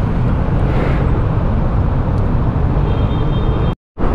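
Steady low rumble of a stock Honda XRM 125 motorcycle's single-cylinder engine and wind on a helmet-mounted mic. The sound cuts out completely for a moment near the end.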